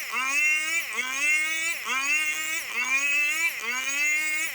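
Two-stroke chainsaw running at high revs while ripping jengkol wood into planks. Its pitch climbs and then drops sharply about every three-quarters of a second as the chain bites into the log.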